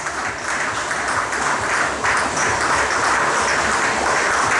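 Many boxing gloves hitting punch bags and pads in quick succession, a dense patter of punches that builds and grows denser about two seconds in.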